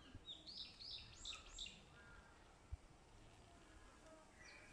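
Faint bird chirps: a quick series of short, high notes in the first two seconds and a few more near the end, over near silence, with one soft low thump in the middle.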